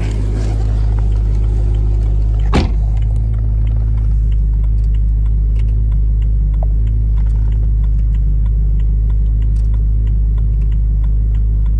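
BMW E9x M3's V8 engine idling steadily with a deep, even rumble, and a single sharp click about two and a half seconds in.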